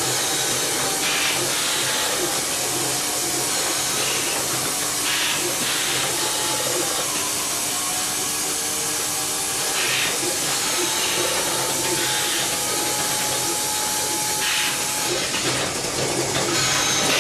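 Fullwood Merlin robotic milking machine running while it milks a cow: a steady hiss and hum from the unit, with short louder hisses every few seconds.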